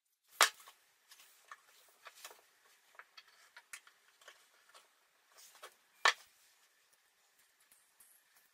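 Light clicks and taps of plywood pieces and a steel rod being handled and fitted together on a workbench, with two sharper knocks, one just after the start and one about six seconds in.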